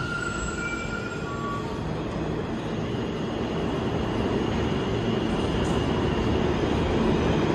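New York City subway train at the platform with a steady low rumble that grows louder toward the end. A thin high squeal dies away in the first second and a half.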